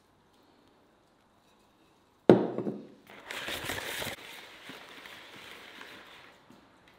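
Whole vegetables being tossed in a large bowl: one loud thump about two seconds in, then about a second of rattling and rustling as the peppers and onions tumble against the bowl, fading off.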